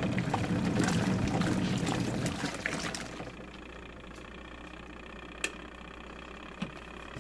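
Twin-tub washing machine's spin dryer running, with water being spun out and draining, then cutting out about three seconds in. A low hum and a couple of light clicks remain.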